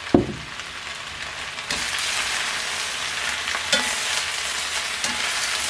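Fresh baby spinach sizzling in hot olive oil and garlic in a pan as it starts to wilt, turned over with tongs; the sizzle gets louder about two seconds in. A short knock right at the start.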